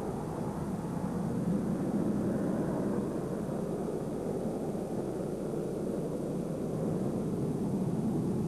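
Jet airliner's engines at takeoff power as it lifts off and climbs away: a steady, low rush of noise.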